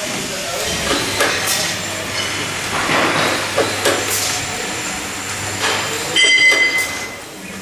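Robotic auto-feed screwdriving machine at work: repeated clicks and knocks from its moving parts over a low steady hum. A louder short burst with a high whine comes about six seconds in.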